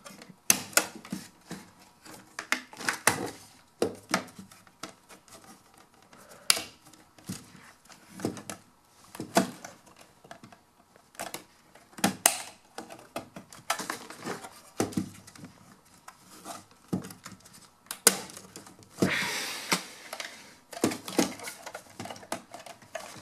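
Hard plastic pieces of a car-stereo dash installation kit being handled and clipped together: irregular sharp clicks and knocks, with a short rubbing scrape of plastic about three-quarters of the way through.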